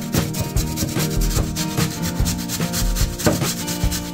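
Raw potato being grated on a stainless steel box grater, a rasping scrape with each stroke, about three strokes a second.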